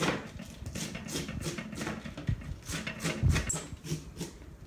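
Kitchen knife chopping cabbage on a cutting board, short sharp strokes about three a second, with one heavier thump on the table about three seconds in.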